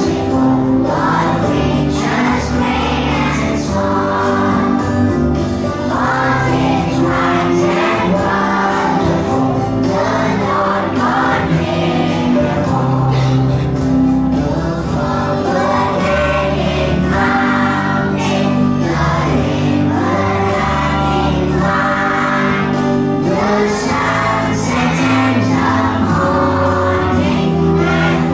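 A group of voices singing a song in chorus over instrumental accompaniment with held bass notes that change every second or so.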